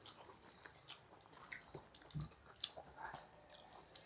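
Faint chewing and soft mouth sounds of people eating rice by hand, with scattered light clicks and a soft low thump about two seconds in.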